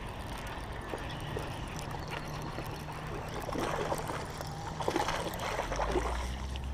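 A hooked small bass splashing and thrashing at the surface of a pond as it is reeled in to the bank, with a run of splashes in the second half.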